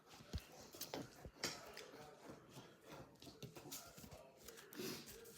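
Quiet eating noises at a table: faint, scattered small clicks and taps.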